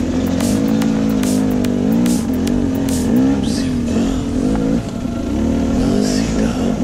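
Enduro motorcycle engine heard from on board, the rider working the throttle so the revs rise and fall about once a second over rough trail.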